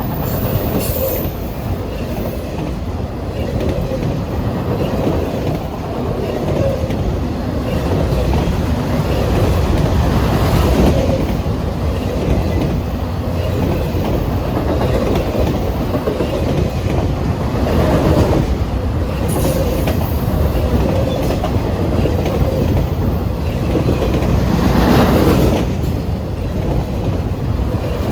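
CSX freight train rolling past: a steady rumble of wheels on rail that swells louder three times, about every seven seconds.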